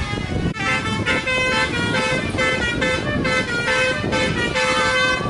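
Bus telolet 'basuri' multi-tone air horn playing a quick tune of short, rapidly changing notes, starting about half a second in, with a low rumble underneath.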